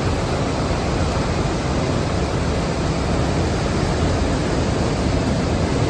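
Isar floodwater pouring down through a weir, a loud steady rush with no breaks.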